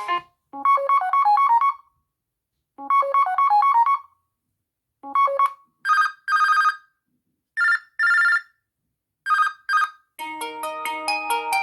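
LG V30 ringtones played one after another: a short chiming phrase twice with a pause between, a few clipped notes, then three pairs of short electronic beeps. About ten seconds in, a fuller melodic ringtone begins.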